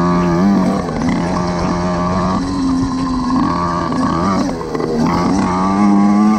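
Small petrol engine of a motorised bicycle running under load, its pitch rising and falling several times as the throttle is opened and eased off over the dirt track.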